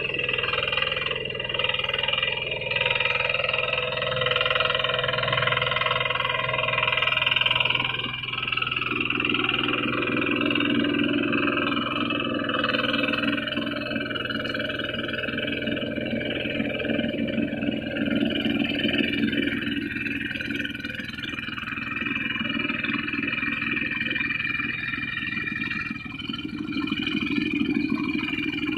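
A two-wheel hand tractor's diesel engine running steadily while it plows a flooded rice paddy, getting heavier and louder about nine seconds in. Frogs croak throughout.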